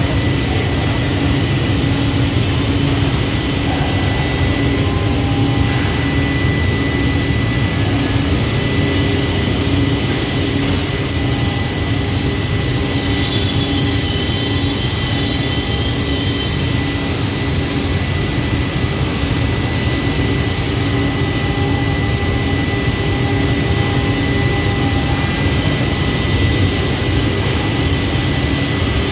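Automatic CNC scroll saw running steadily: a dense low mechanical hum with a thin high whine over it. A brighter hiss joins in from about ten seconds in and drops away about twenty-two seconds in.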